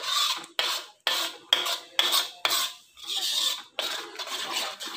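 A spoon scraping and stirring through thick cashew gravy in a metal kadhai, in repeated strokes of about two a second.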